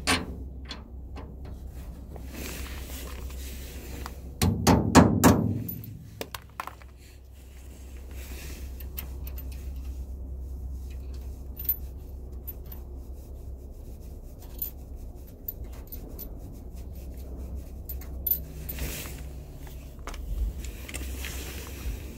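A new bolt being fitted into a truck's suspension with hand tools: scattered metal clinks, taps and scrapes, with a short flurry of loud knocks about four to five seconds in, over a steady low rumble.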